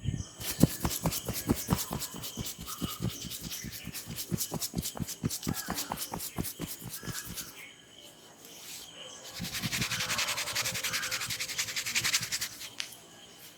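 Hands massaging a head close to the microphone: quick rubbing strokes on hair and skin, about six a second for some seven seconds. Then, after a short lull, a few seconds of denser, hissier scrubbing through the hair.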